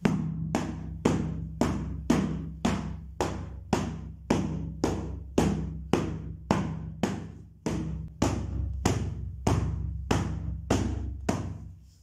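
Background music with a steady drum beat, about two beats a second, over a sustained low bass tone; it starts and stops abruptly.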